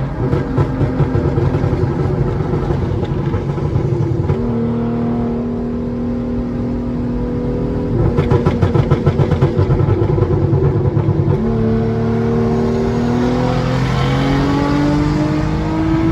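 A 2016 Hyundai Genesis Coupe's 3.8-litre V6, with test pipes in place of the catalytic converters, accelerating hard through the gears of its tuned automatic. The engine note climbs steadily in each gear, and the pitch drops sharply at each of several quick upshifts.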